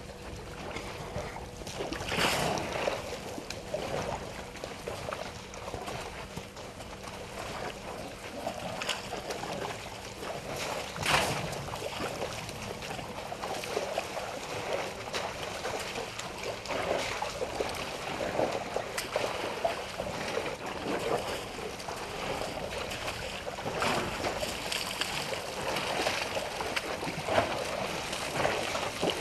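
African elephants wading and drinking at a waterhole: water sloshing and splashing unevenly, with a few louder splashes now and then.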